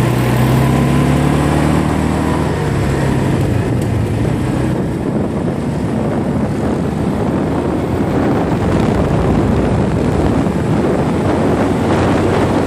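ATV engine running as it is ridden along. Its steady engine note is clear for the first three seconds or so, then wind rushing over the microphone mostly covers it.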